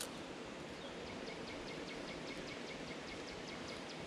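An animal calling in a run of short, evenly spaced high chirps, about six a second, for about three seconds, over a steady outdoor background hiss.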